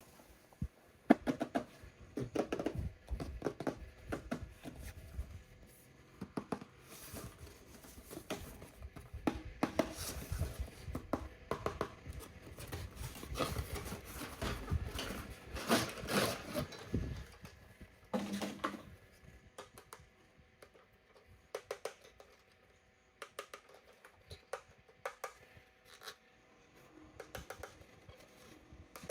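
Hands unpacking toy RC cars: irregular clicks, knocks and rustles of plastic and cardboard packaging, busy for most of the first two-thirds and thinning to scattered clicks near the end.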